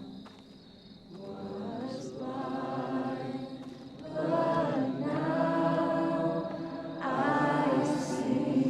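Wordless vocal harmonies, choir-like, singing long held notes in three swelling phrases.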